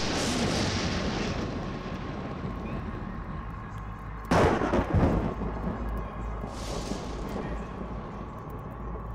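Film sound-effect blasts: a sudden boom at the start that dies away over a second or so, a louder double boom about four seconds in, and a softer whoosh near seven seconds, over a steady low drone.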